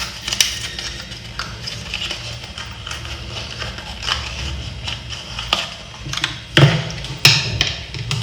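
Handling noise while unpacking a small electronics kit: scattered light clicks, taps and rustles of the plastic connector, foam windscreens and box, with two louder knocks near the end.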